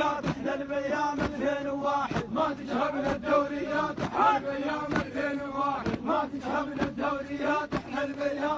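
A crowd of men chanting and shouting together over a steady held tone, with sharp knocks scattered through.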